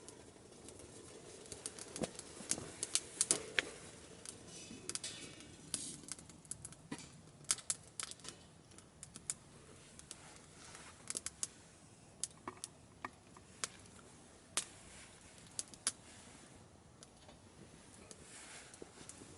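Wood fire crackling in a small camping stove: irregular sharp pops and snaps, some much louder than others, over a faint hiss.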